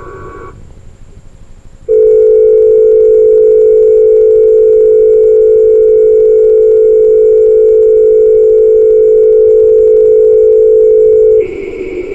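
Emergency alert tone: a loud, steady electronic tone of two close pitches, held unchanged for about nine seconds before cutting off abruptly. It is preceded right at the start by the tail of a short warbling data-tone burst.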